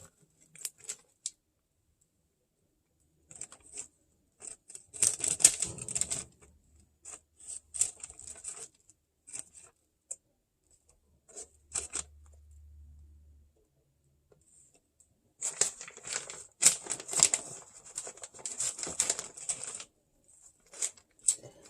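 Hands preparing food on a kitchen counter: crisp rustling, tearing and tapping in short bursts separated by quiet gaps, with the longest stretch of handling near the end.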